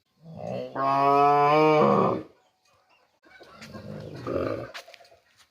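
Cow mooing: one long, loud moo of about two seconds, followed about a second later by a quieter, rougher, lower call.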